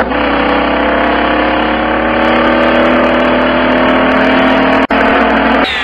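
Citroën car engine running, heard from inside the cabin: a steady drone whose pitch creeps slowly upward. It drops out for an instant about five seconds in and is cut off just before the end.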